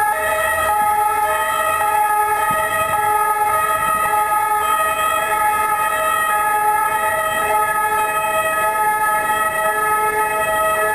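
Emergency vehicle's two-tone siren sounding steadily, switching back and forth between two pitches, over street traffic.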